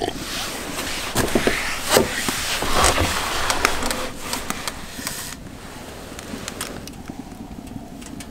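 A gust of cold wind blowing hard for about five seconds, then easing off to a quieter rush. A few sharp clicks sound during the gust.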